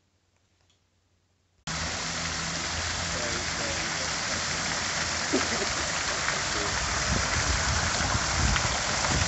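Near silence, then, about two seconds in, the steady hissing splash of a tiered ornamental fountain's jets falling into its basin cuts in suddenly.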